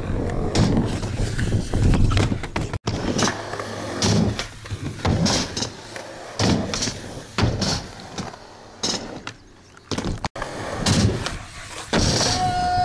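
Skateboard on concrete: wheels rolling with repeated sharp clacks of tail pops and landings, broken by abrupt cuts between takes. Near the end a steady squeal sets in as the trucks grind along a ledge.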